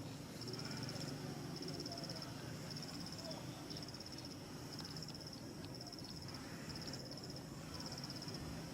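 Insects chirping: a high, pulsing trill that comes in short bursts, repeating about once a second.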